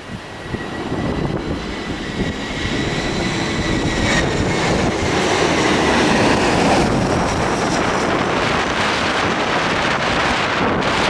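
Jet airliner coming in to land close by: a high, steady engine whine over a rush of jet noise that grows louder over the first several seconds and then stays loud.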